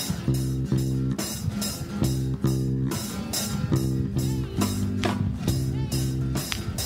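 Instrumental music with guitar, bass and drums keeping a steady, repeating beat.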